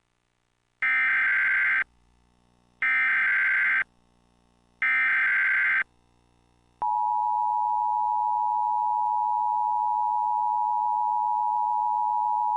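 Emergency Alert System tones: three one-second bursts of SAME header data about a second apart, then the steady attention tone begins about seven seconds in and holds on. This sequence signals that an alert, here a tornado warning, is about to be read.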